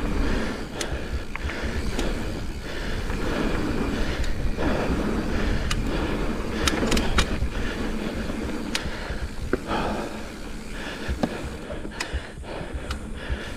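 Mountain bike rolling fast along a dirt trail: steady tyre noise with a low rumble of wind on the microphone, and scattered sharp clicks and rattles from the bike.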